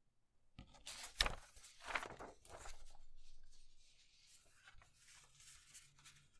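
A sheet of printer paper being handled and folded on a cutting mat: rustling and crackling as it is picked up and straightened, with a sharp crackle about a second in, then a steady sliding hiss and softer crinkles as it is folded in half lengthwise and the fold pressed down.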